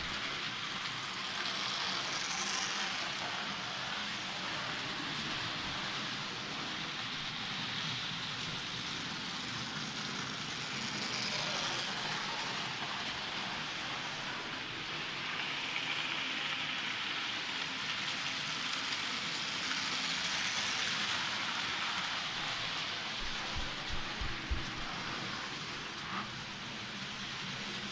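Model armoured train running around a layout: a steady rattle of its wheels on the track that swells about every nine seconds as it passes close. A few short low thumps come about three-quarters of the way through.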